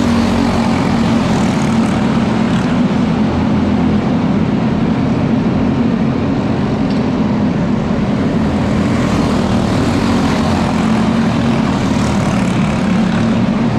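A pack of box stock racing karts' small engines running together on a dirt oval, a steady, unbroken drone.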